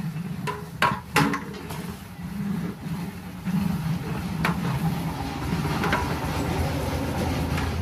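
A long-handled metal ladle knocks and scrapes against a large aluminium cooking pot as thick khichuri is stirred, with a few sharp clinks in the first second and a couple more later. A steady low rumble runs underneath.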